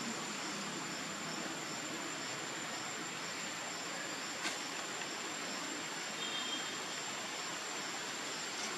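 Outdoor forest ambience: a steady hiss with a constant high-pitched insect drone and faint regular chirps, about two or three a second. One sharp click comes about four and a half seconds in.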